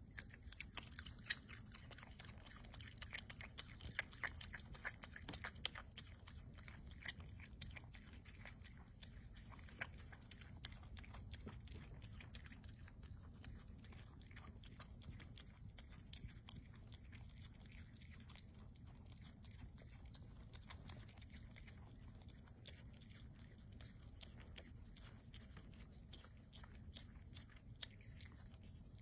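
Opossum chewing at close range: a run of small wet clicks and smacks, busiest and loudest in the first several seconds, then steadier and quieter.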